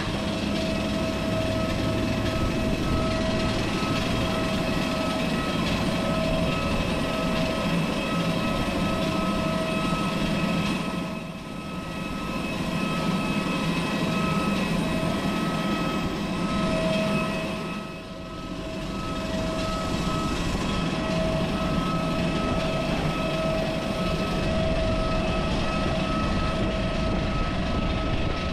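Steady rushing hum with a constant high whine from a parked jet airliner and its apron ground equipment running at the gate. The noise dips briefly twice.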